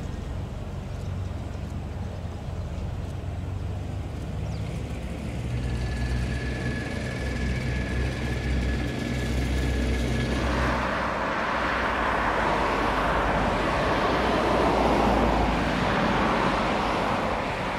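Aircraft tow tractor's engine running with a low steady rumble as it tows a Pilatus PC-24 jet, a thin steady whine sounding for a few seconds midway. About ten seconds in, a broad rushing noise builds and becomes the loudest sound.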